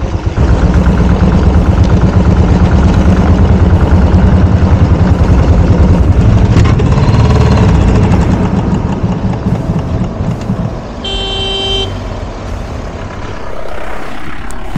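Motor vehicle engine running with a heavy low rumble that eases off about ten seconds in. A vehicle horn then sounds once, for about a second.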